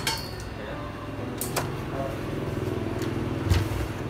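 A steady low hum with a few short clicks and knocks: one at the start, two close together about a second and a half in, and a heavier knock near the end.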